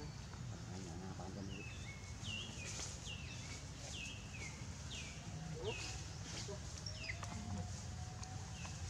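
A bird calling in the background: a run of short notes, each sliding downward, about two a second, over a low steady background rumble.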